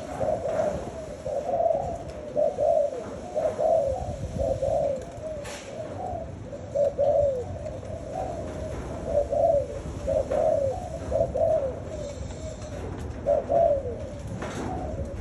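Spotted dove cooing: a steady run of short, low coo phrases repeated one after another.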